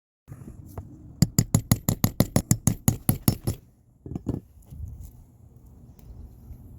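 A fast run of sharp knocks, about six a second for a couple of seconds, then two more knocks.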